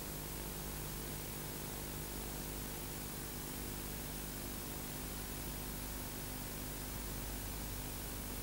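Steady hiss with a low, unchanging hum underneath and no other sound: the background noise of an old video recording.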